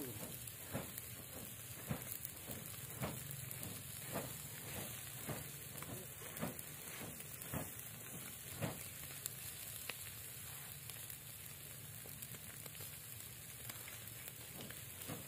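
Whole fish sizzling faintly on a wire grill over charcoal, with a short whoosh about once a second for the first nine seconds or so as a plate is waved to fan the coals.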